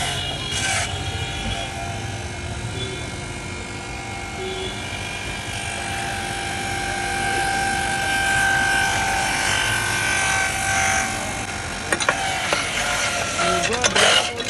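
A small electric motor whirring steadily over street noise, with a few sharp clicks and rattles near the end.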